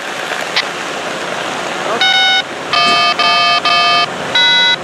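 Electronic chord tones: five short, clean blasts with abrupt starts and stops, beginning about two seconds in, the middle three in a quick run, over a steady background hiss.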